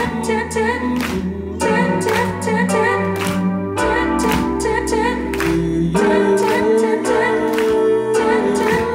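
Live pop music performance: a backing track with a steady drum beat and deep bass that changes note every couple of seconds, with singing over it.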